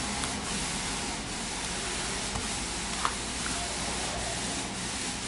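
Steady, even hiss with a faint low hum beneath it and a few faint clicks, one clearest about three seconds in.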